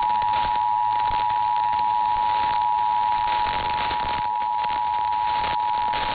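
Emergency Alert System two-tone attention signal: two steady pitches sounding together without a break, over background hiss. It is the alarm that signals an emergency alert is about to be read, here a tornado warning.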